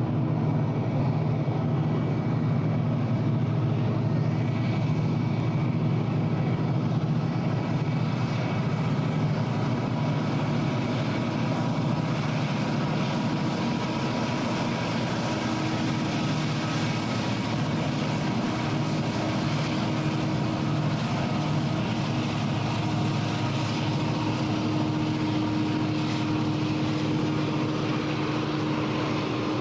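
Diesel freight locomotives working a long train, their engines making a steady drone that holds throughout.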